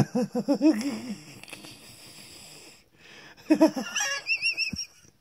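A man laughing: a quick run of laugh pulses falling in pitch and fading after about a second, then a second burst about three and a half seconds in that ends in a high, wavering squeal.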